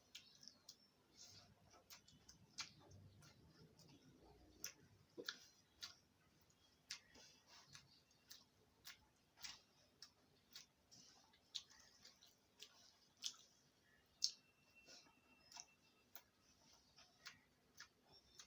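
Faint eating sounds over near silence: irregular sharp clicks from chewing and the mouth, roughly one a second.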